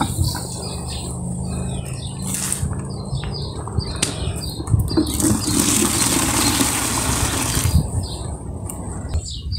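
Wind buffeting the microphone: a continuous low rumble, with a stronger rush of wind noise from about five to eight seconds in.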